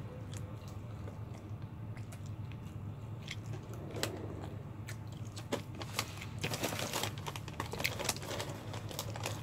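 Close-up mouth sounds of eating KFC fried chicken: small crisp clicks and crackles of biting and chewing the breaded meat. They are sparse at first and grow dense from about six seconds in. A steady low hum runs underneath.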